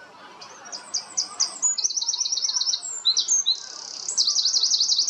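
A songbird singing a loud, high song of quick down-sweeping notes that break into fast rattling trills, twice over.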